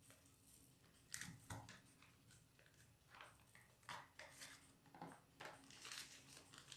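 Faint, scattered rustles and scrapes as a paper wrapper is peeled off a block of cottage cheese and a fork scrapes the cheese into a plastic container.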